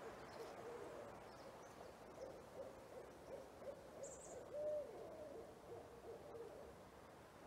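Owls hooting in the daytime: a faint, rapid string of short hoots, with one longer hoot about four and a half seconds in. A brief high bird chirp comes just after four seconds.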